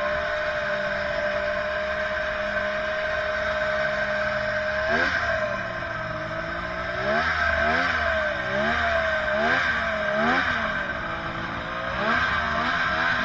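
Snowmobile engine heard from on board the sled, running at a steady speed, then from about five seconds in blipped on and off the throttle again and again, its pitch rising and falling about once a second as the sled creeps in among parked sleds.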